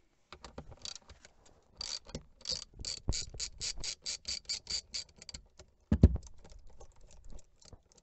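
A ratchet turning a T20 Torx bit to undo a steering-wheel paddle-shift screw: scattered clicks, then a steady run of pawl clicks at about five a second for a couple of seconds. A single louder thump follows about six seconds in.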